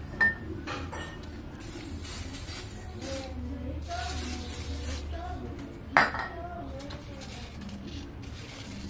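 Two short hisses of a WD-40 aerosol can spraying onto the crankshaft. A sharp metallic clink comes just after the start, and a louder one about six seconds in.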